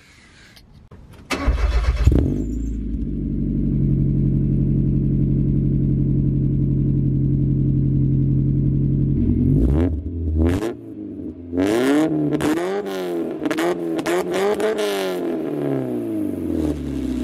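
Mazda Miata's four-cylinder engine, breathing through a newly fitted ISR aftermarket exhaust, starting up about a second in and idling steadily. Over the last several seconds it is revved several times, the pitch rising and falling with each blip.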